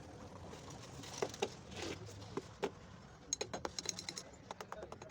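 A few separate knocks, then from a little past the middle a quick run of sharp clicks and taps, as of small hard objects or tools being handled, over a low steady hum.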